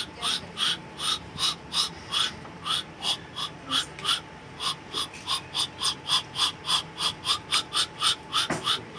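A man mimicking an animal call with his mouth: a rapid, regular series of short, breathy huffs, about four a second, quickening near the end.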